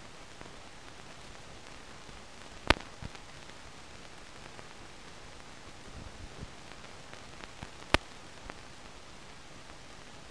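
Steady hiss and crackle of an old film soundtrack with no recorded sound on it, with two sharp pops, about three seconds in and again about eight seconds in, and a few fainter crackles.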